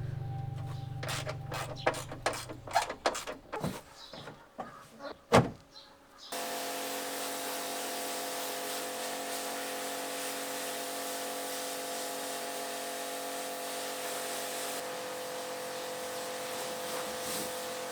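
Several sharp knocks and clicks over a low hum that fades out, then about six seconds in a steady machine whir with a constant hum starts abruptly and runs on evenly.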